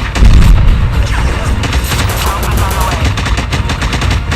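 Airsoft guns firing in rapid bursts of sharp shots, in irregular runs.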